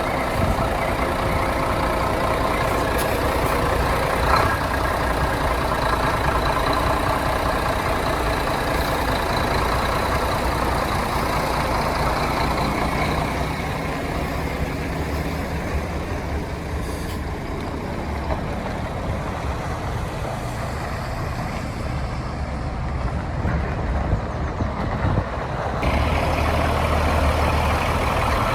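Diesel engine of an Iveco Trakker 380 8x4 concrete mixer truck running steadily at idle, with a brief knock about four seconds in. The low hum shifts near the end.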